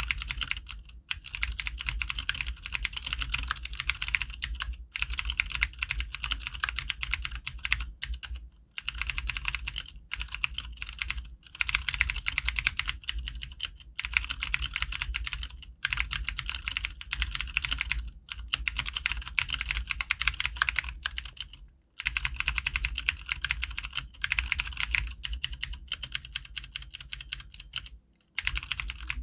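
Continuous fast typing on a Cherry G80-3000S TKL mechanical keyboard with clicky Cherry MX Blue switches and double-shot PBT keycaps: dense streams of sharp key clicks in runs of a few seconds, with brief pauses between runs. The plastic, plate-less case adds a slight hollow ring.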